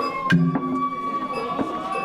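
Japanese festival hayashi music playing. One high note is held steadily throughout, with a sharp struck beat about a third of a second in.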